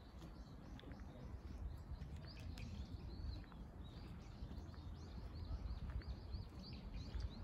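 Small birds chirping, many short high chirps in quick succession from about two seconds in, over a low steady outdoor rumble.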